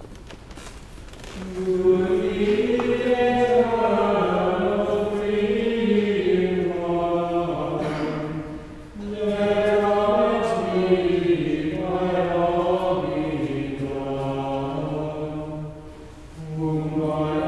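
Choir chanting in long, slow phrases, with a short break about halfway through and another dip near the end.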